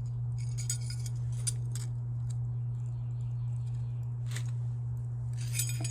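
Gold-tone metal chain necklace clinking lightly as it is handled, a few scattered chinks, over a steady low hum.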